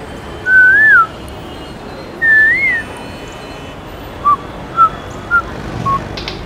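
A person whistling: two loud whistles that rise and then fall, followed by four short whistled chirps.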